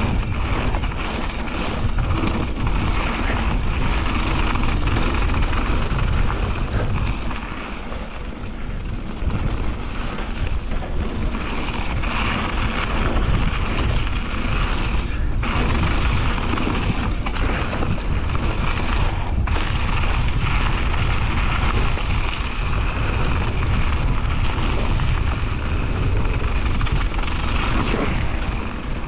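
Wind rushing over an action camera's microphone during a fast mountain-bike descent, mixed with knobby tyres rolling on the dirt trail. Occasional sharp knocks and rattles come from the bike over bumps.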